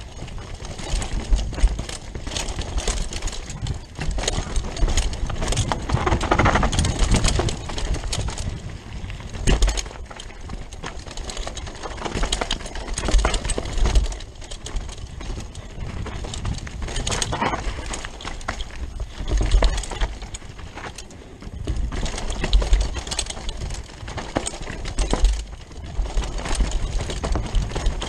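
Rockrider 540S mountain bike riding fast down a rough dirt trail: tyres crunching over dirt and small stones, the bike rattling with a constant run of clicks and knocks, and low thumping surges every few seconds as it hits bumps.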